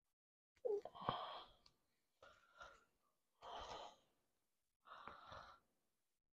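Faint handling of a plastic action figure and its small fabric cloak: four short, soft rustles. The first and loudest, about a second in, carries a light click.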